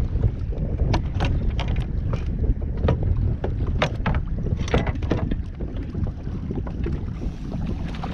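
Wind buffeting the microphone on a kayak at sea, a steady low rumble, with water slapping and splashing irregularly against the hull.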